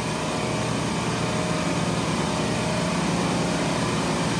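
Steady drone of a running commercial refrigeration compressor rack: a constant low hum with an even mechanical noise over it.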